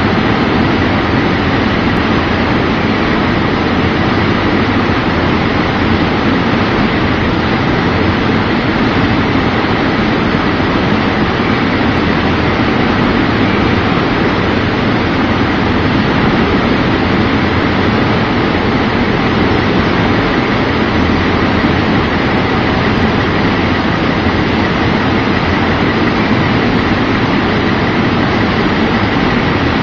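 Shaker screen, a screening machine that gyrates in one horizontal plane, running steadily on a test run: constant loud mechanical noise with a faint steady high tone.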